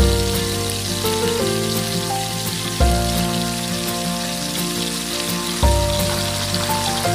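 Breaded chicken frying in hot oil in a wok: a steady crackling sizzle. It sits under background music, whose bass note changes about every three seconds.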